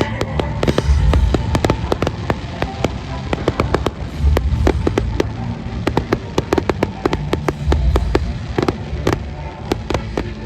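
Fireworks going off in a rapid run of sharp cracks and crackles, with deep thumps about every three and a half seconds. Music plays underneath.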